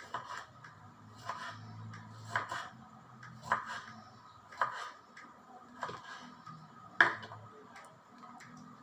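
Kitchen knife striking a cutting board in slow, even strokes, about one a second, seven in all, the loudest near the end.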